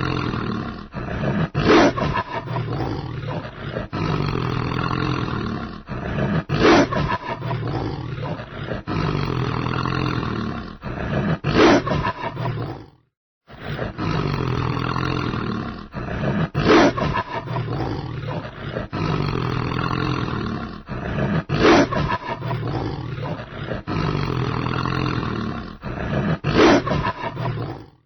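Wolf growling: deep, continuous rasping growls broken by a sharp, louder snarl about every five seconds. The sequence cuts out briefly near the middle and then repeats.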